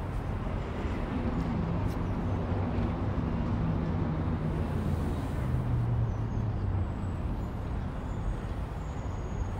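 Engine hum, a low droning tone that builds from about a second in and fades by about seven seconds in, over a steady low outdoor rumble.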